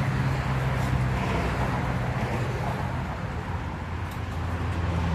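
Road traffic: a vehicle engine's steady low hum over a haze of road noise, its pitch shifting slightly a couple of times.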